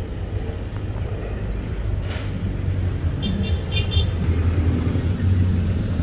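Steady low hum of a running engine, with a few short high tones a little after three seconds in.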